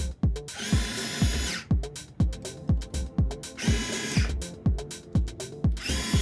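Background music with a steady beat of deep kick-drum thumps about twice a second. Over it, the RC excavator's small electric motors whine while the arm moves, stopping and starting several times as the sticks are worked.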